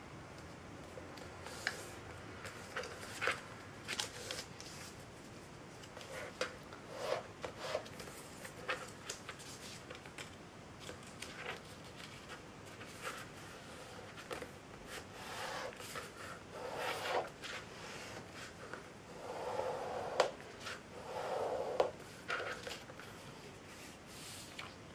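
Printer paper being folded and creased by hand on a tabletop: scattered short crinkles and taps, and longer rubbing swishes in the second half as fingers run along the folds.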